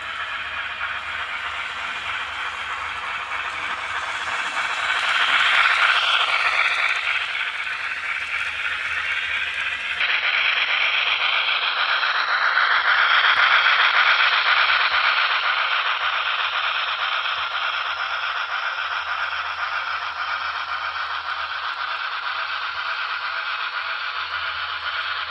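A steam engine running with a continuous rattling, scraping noise that swells twice, about five seconds in and again around thirteen seconds.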